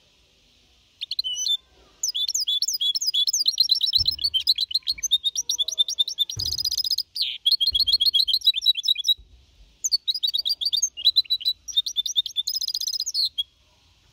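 Young goldfinch hybrid (mixto) singing Copia Málaga-style song: fast runs of high chirps and trills in long phrases, with a short break about nine seconds in.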